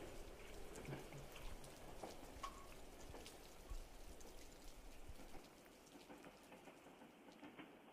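Faint patter of water drops with scattered small clicks, dropping quieter about five seconds in.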